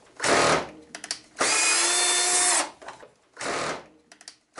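Power-tool whirring in short runs: a brief rush, a few clicks, then a steady whir for a little over a second that drops at its end, then another brief rush and a few more clicks.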